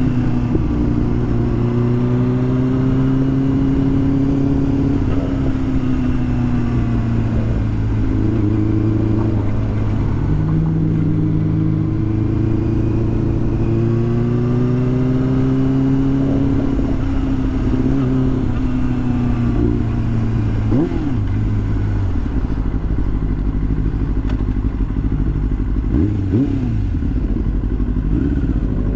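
2005 Yamaha YZF-R6's inline-four engine running under way at a steady cruise, its pitch rising and falling gently with the throttle, over wind rush. In the last third the pitch changes more quickly a few times.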